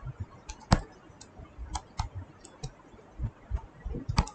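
Stylus tapping and clicking on a writing tablet while words are handwritten: a dozen or so light, irregular clicks.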